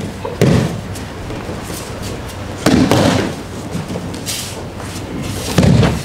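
Three heavy thuds about two and a half seconds apart: bodies landing on a padded aikido mat as partners are thrown and take their breakfalls.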